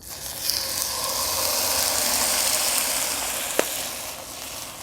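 Flat iron steak searing in a very hot oiled cast iron pan: a loud sizzle that starts suddenly as the meat goes down and eases slightly near the end, with one sharp click about three and a half seconds in.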